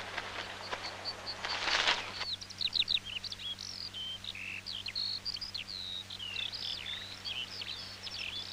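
Rustling and crackling noise for about two seconds, swelling and then cutting off. After it, a busy chorus of small songbirds chirping and twittering, many short, quick calls overlapping, over a faint steady hum.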